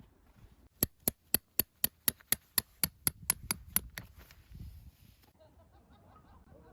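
A quick run of about fourteen sharp strikes, about four a second, like a hammer tapping; they stop about four seconds in.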